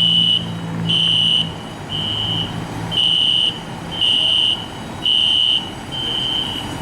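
Fire alarm sounding: a high electronic beep repeating about once a second, each beep about half a second long.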